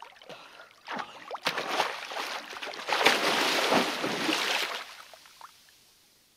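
Water splashing as a snorkeler in fins dives under from the surface, the splashing loudest about three to four seconds in and then dying away.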